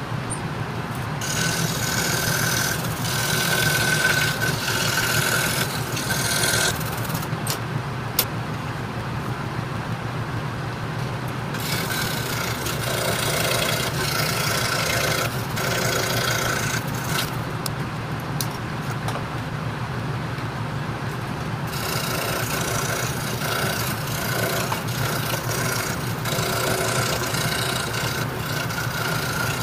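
26-inch RBI Hawk scroll saw running steadily with a 5-0 skip-tooth blade. Three times it gives a harsher, rasping sound lasting several seconds as the blade cuts Baltic birch plywood, with the plain motor hum in between.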